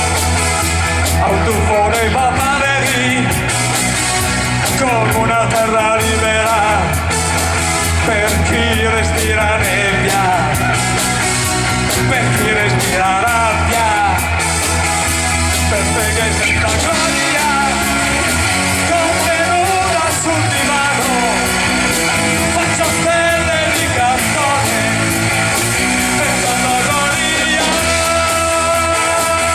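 Rock music with a voice singing over a continuous band accompaniment and heavy bass.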